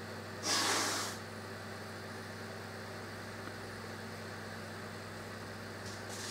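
Steady low electrical hum with faint hiss. About half a second in, a short rustle of noise lasting about half a second.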